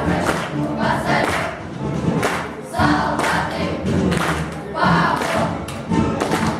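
A choir singing a marching song over musical accompaniment, with sharp beats cutting through.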